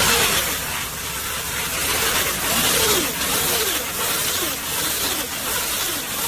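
A loud, steady hiss like rushing spray or air, with faint short falling tones repeating about every two-thirds of a second.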